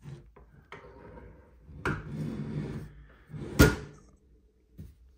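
Folding wire tilt feet on the metal case of a Meratronik V543 bench multimeter being swung out, with a few clicks and knocks and rubbing from handling the case on the bench; the sharpest knock comes about three and a half seconds in.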